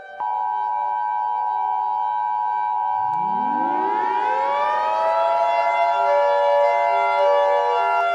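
Emergency Alert System attention signal, a steady two-tone electronic tone just under 1 kHz, starts a moment in. About three seconds in, a civil defense siren begins winding up, its wail rising in pitch and levelling off, and sounds together with the tone until the tone cuts off near the end.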